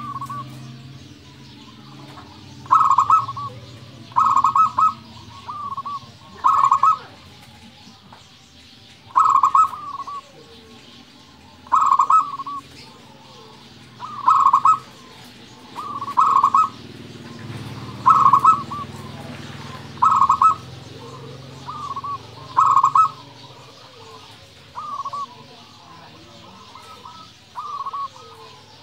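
Zebra dove (perkutut) singing: about a dozen short phrases of quick, rolling coos, repeated every two seconds or so.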